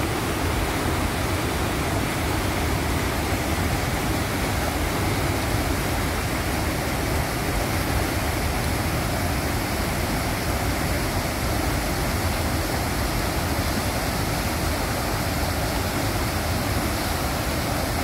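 Lower Düden Waterfall, where the Düden River drops off the cliffs into the Mediterranean: a steady, unbroken rush of falling water.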